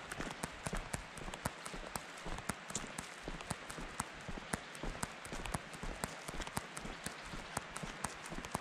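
Footsteps of a hiker walking at a steady pace on a gravelly, leaf-covered old road: low thuds at an even walking rhythm, with many small crunches and clicks between them.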